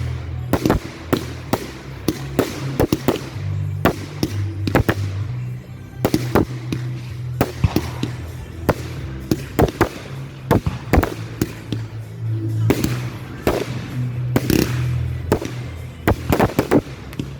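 Fireworks going off in quick, irregular succession: sharp bangs and cracks of bursting shells, several close together at times, over music with a steady bass.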